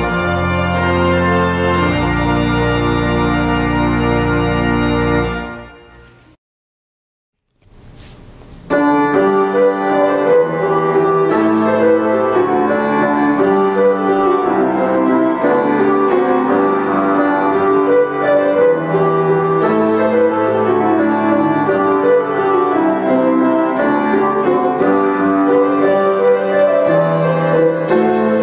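A church organ holds the final chord of a hymn with deep bass notes, which releases and dies away about five seconds in. After a short silence and a faint click, a keyboard postlude with a piano sound begins about nine seconds in and plays on with many moving notes.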